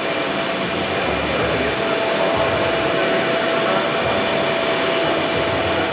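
Steady rushing machine noise with a constant mid-pitched whine over it.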